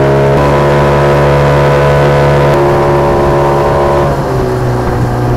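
Outboard motor driving an aluminium fishing boat at speed: a steady engine drone over water rushing past the hull. The engine note dips slightly about four seconds in.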